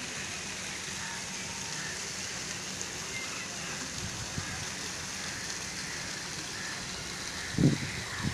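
Fountain jets splashing into a pond: a steady, rain-like hiss of falling water. A brief low rumble comes near the end.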